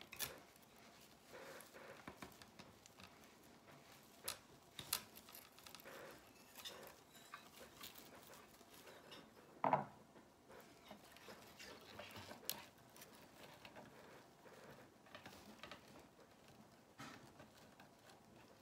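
Faint rustling and light tapping as plastic deco mesh, pipe cleaners and a wire wreath frame are handled, with one brief louder sound about ten seconds in.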